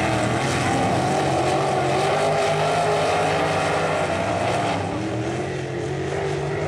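Several sprint car engines running on a dirt oval, their pitch wavering up and down together; a little quieter about five seconds in.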